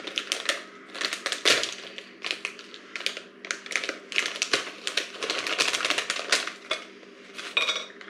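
Crinkly plastic snack packaging rustling and crackling as it is opened and handled, a dense, irregular run of crackles.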